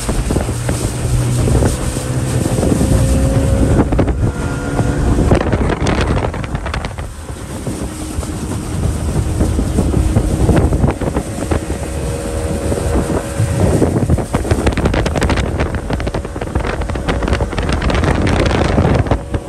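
Motorboat engine running steadily under way across a lake, its hum mixed with heavy wind noise on the microphone and rushing water.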